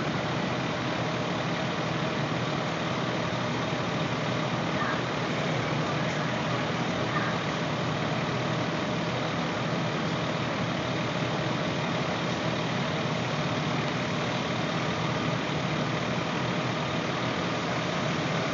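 Fire apparatus engines running steadily, a constant drone with a wash of noise over it.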